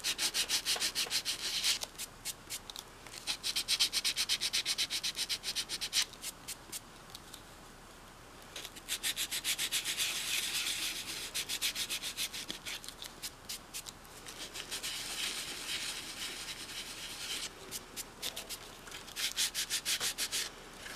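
Hand sanding of a filler-patched doll head with a small piece of sandpaper: quick back-and-forth scratchy strokes, several a second, in runs of a few seconds broken by short pauses.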